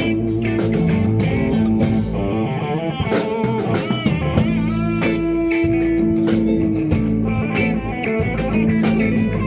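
Live blues band playing a minor blues, electric guitar to the fore over a drum kit. The guitar bends notes about three seconds in, then holds one long note through the middle.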